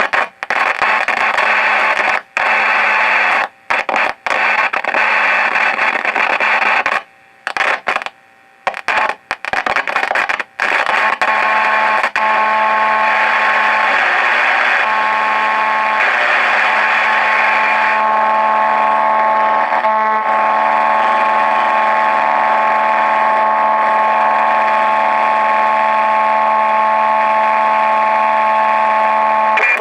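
Vintage Marconi model 2004 seven-transistor radio on the shortwave band, loudly hissing static through its speakers, swamped with interference. The static drops out abruptly several times in the first ten seconds or so, then holds steady with a low hum and a few steady whistling tones over the hiss.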